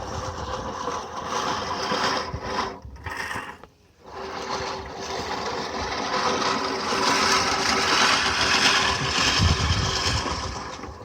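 Lawn Demon push reel mower cutting grass: the spinning reel blades whir as it is pushed, dropping out briefly about four seconds in, then running louder.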